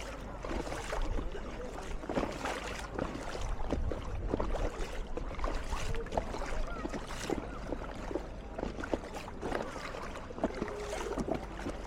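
Paddle splashing and water lapping as a sea canoe is paddled, in many short irregular splashes over a steady water hiss.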